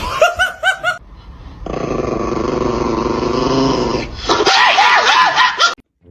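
A pet animal giving short, high yelping calls in quick runs, about four in the first second and three more near the end. In between is a loud, steady, rough sound lasting a couple of seconds.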